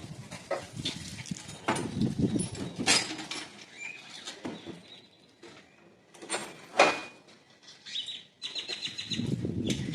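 Metal hand tools clinking and knocking, with irregular sharp clanks and brief rings. The two loudest clanks fall about 3 and 7 seconds in, and handling noise grows near the end.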